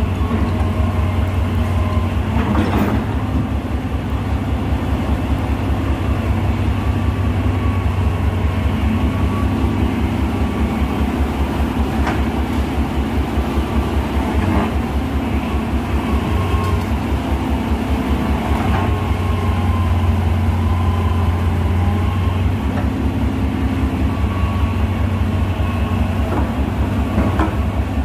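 Hitachi EX220LC excavator's diesel engine running steadily with a fast, even throb while the machine swings and moves on its tracks, with a few clanks from the tracks and undercarriage.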